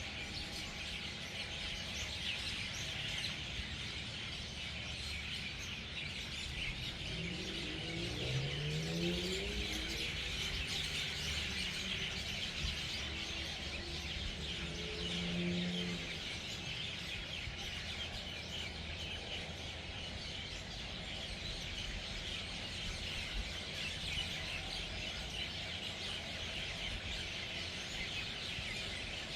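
Dense, continuous chorus of many birds chirping and chattering, a large flock gathering at its evening roost. Brief low droning sounds rise about eight seconds in and come again around fifteen seconds in.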